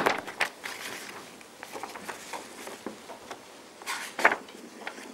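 Paper pages of a hardbound book being leafed through: rustling, with a sharp page flick at the start and two more about four seconds in.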